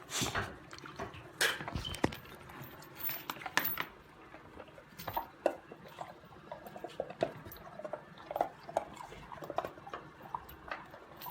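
An American Bulldog puppy chewing and licking an ice cube: irregular crunching clicks and wet lapping sounds.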